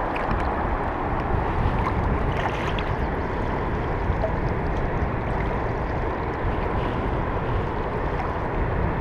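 Steady rushing noise of wind buffeting the microphone, mixed with shallow water lapping around a hand holding a pike in the water.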